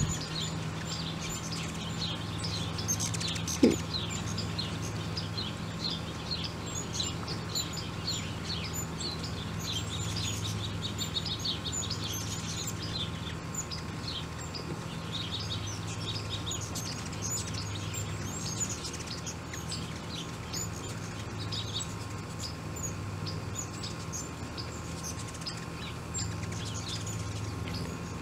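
Ruby-throated hummingbirds chipping and chattering: many short, high notes in quick series, thickest in the middle, over a steady low hum. One short loud pop about four seconds in.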